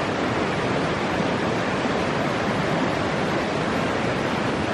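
A mountain creek rushing: a steady, fairly loud wash of running water.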